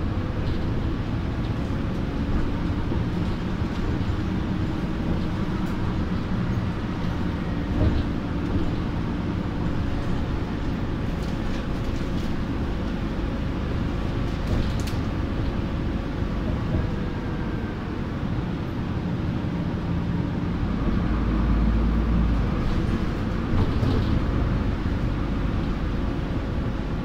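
Solaris Urbino 18 articulated city bus heard from inside, over a wheel arch, while driving: the engine and drive axle run steadily, with several held whining tones that slowly shift in pitch over a low rumble. The low rumble grows heavier for a few seconds about two-thirds of the way in.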